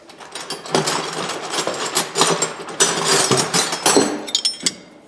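Metal hand tools, wrenches and sockets, clinking and clattering against each other as they are rummaged through in a box. The clatter is dense and irregular for about four and a half seconds, then stops just before the end.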